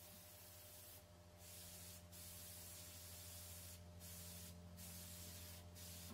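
Airbrush spraying paint in about six short bursts of faint hiss, each cut off as the trigger is let go, over a low steady hum.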